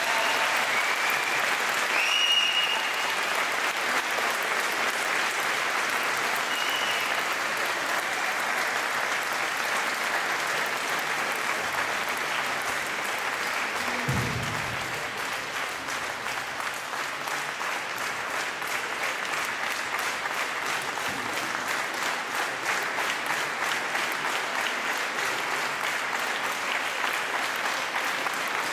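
Audience applauding; in the second half the clapping settles into a steady rhythm of about three claps a second.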